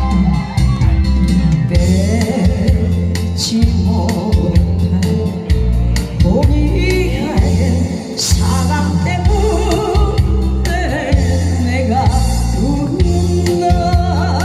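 A song: a singer's voice over loud accompaniment with a heavy, pulsing bass.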